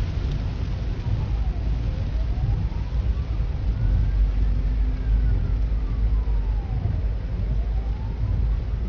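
Siren of a Hong Kong Fire Services ambulance wailing faintly in a slow rise and fall, about one full cycle every five seconds. It sounds under a loud, low, steady rumble heard from inside a car in rain.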